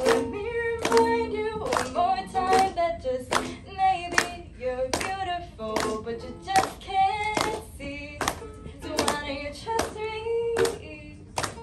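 A woman singing a slow pop ballad into a microphone, accompanied by a strummed ukulele. A sharp percussive hit falls on the beat, about every 0.8 seconds.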